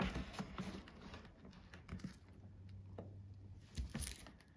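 Faint, scattered light taps and clicks of hands handling a hard object, with a louder couple of knocks about four seconds in.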